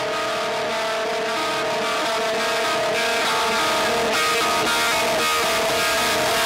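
Background music led by a sustained electric guitar, its notes held and changing every second or so, slowly growing louder.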